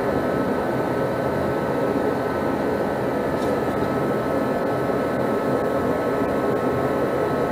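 Steady machine noise, an even whoosh with a faint steady hum, unchanging throughout.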